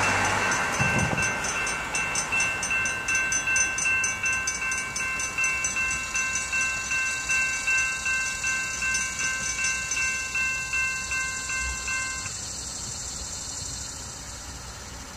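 Railroad grade-crossing warning bell ringing in steady, evenly spaced strokes, about one and a half a second, as the crossing gates come down. It stops suddenly about twelve seconds in, once the gates are down.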